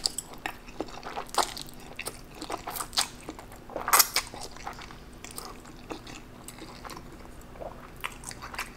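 Close-miked eating of saucy instant black bean noodles (spicy jjajangmyeon): wet slurps, chewing and sharp mouth smacks in an irregular run. The loudest comes about four seconds in.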